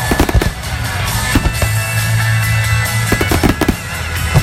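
Music playing throughout, with aerial firework shells bursting through it: a few bangs near the start and around a second and a half in, then a quick cluster a little past three seconds.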